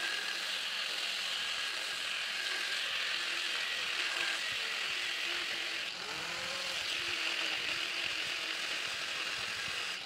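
Angle grinder with a cutting disc slicing lengthwise down the flattened end of a steel bar clamped in a vise, a steady high grinding hiss; it dips briefly about six seconds in as the grinder is repositioned.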